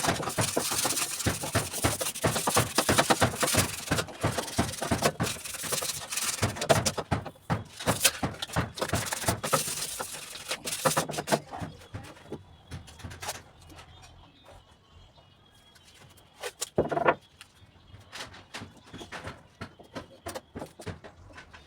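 Spray-paint can being shaken, its mixing ball rattling in rapid dense clicks for about the first ten seconds, then only scattered clicks.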